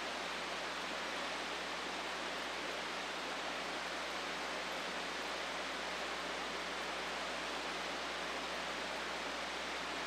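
Steady, even rush of water from Buttermilk Falls, a tall cascade running high after several days of rain.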